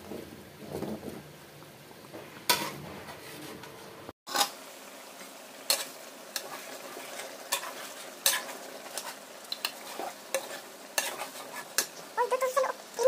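Slotted spatula stirring chicken wings through simmering tomato sauce in a nonstick frying pan. Frequent sharp clicks and scrapes of the spatula against the pan sound over the steady hiss of the simmer.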